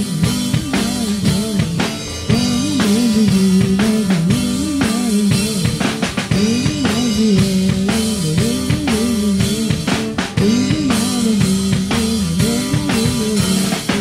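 Live band playing a song: a drum kit keeps a steady groove of kick, snare and rim clicks under electric guitar.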